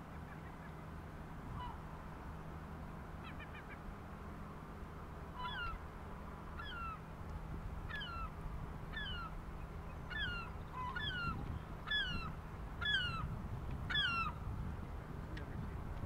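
A gull calling: a run of short, falling yelps, about two a second, beginning about five seconds in and growing louder before stopping near the end. A low steady hum and rumble run underneath.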